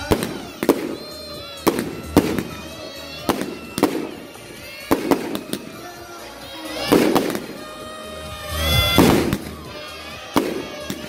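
Aerial fireworks bursting in a string of sharp bangs, about one or two a second. A longer, louder burst comes about nine seconds in.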